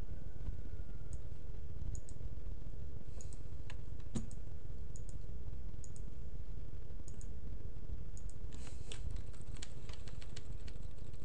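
Clicks of a computer keyboard and mouse: scattered single clicks, then a quick run of taps about three quarters of the way in, over a steady low hum.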